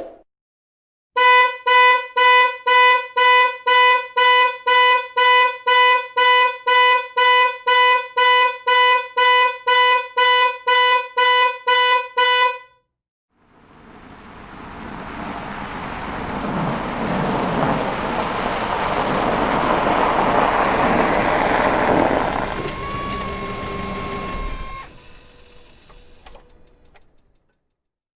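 A car horn honking in rapid, even pulses, about two and a half honks a second for some eleven seconds. Then a car's running noise swells up and fades away.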